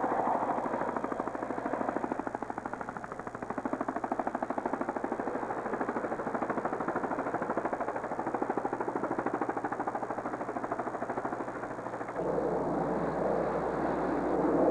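A steady motor drone with a fast, even pulse. About twelve seconds in it stops abruptly and a louder, rougher noise with a low hum takes over.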